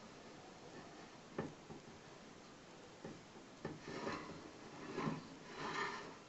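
A few light knocks and some rubbing, as of things being handled, with gaps between them.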